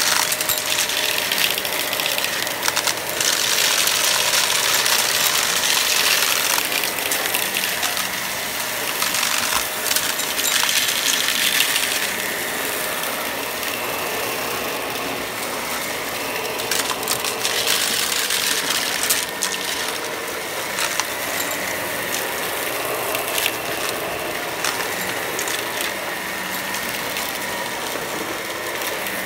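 Shark Professional Lift-Away upright vacuum running steadily while picking up a mixed pile of beads, paper bits and lint, with a dense rattle of hard particles clattering up through the cleaner head into the dust cup. The rattle grows louder in a few stretches of several seconds as the head passes over the thicker parts of the pile.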